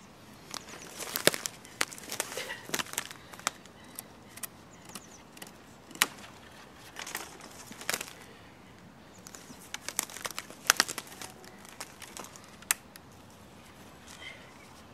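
Dead twigs and brush crackling and snapping underfoot and against the body as a person pushes into a tangle of dry branches. There is an irregular scatter of sharp cracks, with two busier patches of crackling, one near the start and one past the middle.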